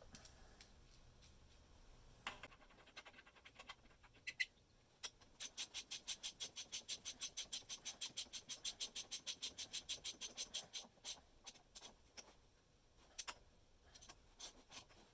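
A hand ratchet clicking in a fast, even run of about eight clicks a second for several seconds, with scattered single clicks and taps of tools before and after.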